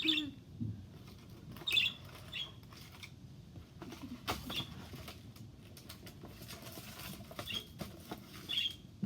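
Small pet parrots giving short, high chirps every second or two, with wing flapping and light scratching and tapping.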